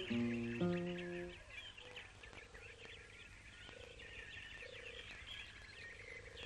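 Plucked musical notes end about a second and a half in. Then comes an animal chorus: dense high chirping, with short low pulsing croaks repeating every second or so.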